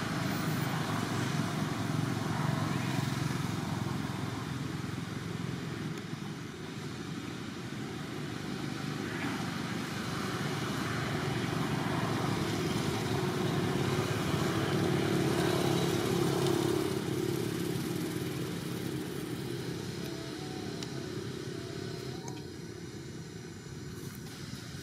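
Low rumble of a motor vehicle engine, swelling to a steady hum in the middle and fading toward the end.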